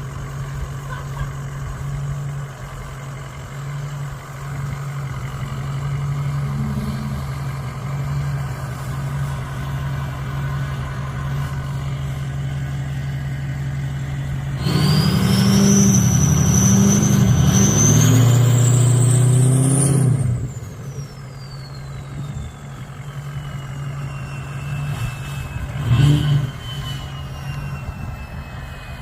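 Turbo-diesel pickup truck engine running steadily, then revving hard for about five seconds with a rising turbo whistle. After the throttle lifts, the whistle winds slowly down in pitch as the turbo spools down. A single thump comes near the end.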